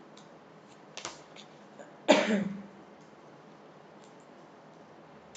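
A deck of tarot cards being shuffled by hand with a few soft clicks, and about two seconds in a woman gives one short throat-clearing cough.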